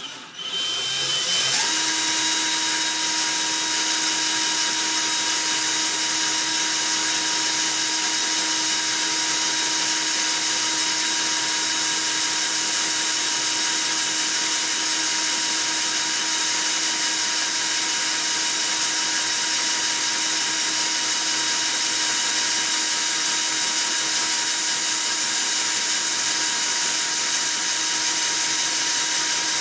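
Electric screwdriver spinning a wooden dowel while sandpaper is held around it. The motor spins up over about a second and a half, then runs at a steady speed with a constant whine over the hiss of the sandpaper on the turning wood.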